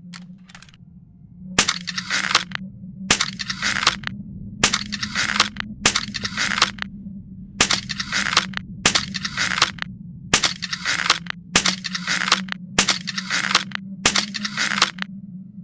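Crossbow sound effect: a regular series of harsh, noisy strokes, each beginning with a sharp click, about one every one and a half seconds, over a steady low hum.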